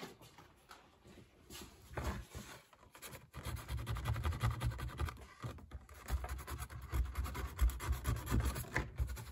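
Hand sanding: sandpaper rubbed quickly back and forth over a plastic part to rough up its gluing surface. A few light strokes at first, then a steady run of rapid strokes from about three seconds in, with soft knocks against the bench.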